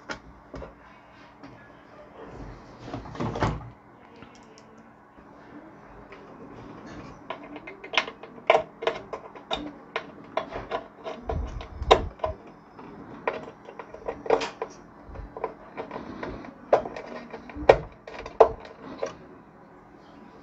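Handling noise from reassembling a subwoofer amplifier: irregular clicks and knocks as plastic wire-harness connectors are pushed onto the circuit board and the wiring is moved about inside the metal chassis. The clicks come thickest in the second half.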